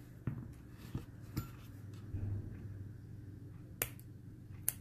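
Scissors snipping the cotton wick ends of a freshly built vape coil: a few short sharp clicks, the two loudest near the end.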